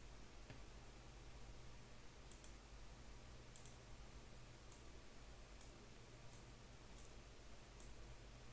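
Near silence with a low steady hum, broken by several faint computer mouse clicks, some in quick pairs.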